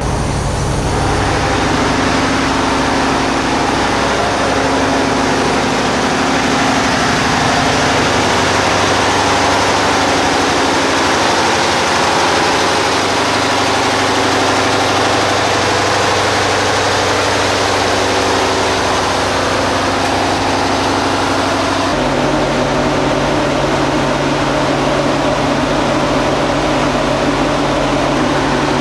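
Large diesel engine running steadily, heard loud and close inside the engine room of a DB class 601 (VT 11.5) TEE power car. About three-quarters of the way through, the sound changes abruptly to a deeper hum.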